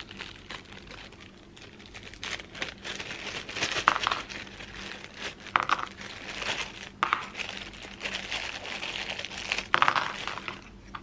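Small clear plastic bag of sunshade mounting clips crinkling and rustling in fits as it is opened and handled by hand, with a few sharp clicks.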